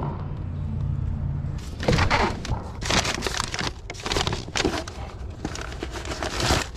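A brown paper bag crinkling and rustling in the hands while it is packed into a fabric backpack, in irregular bursts of rustle from about two seconds in. A steady low hum comes before the rustling.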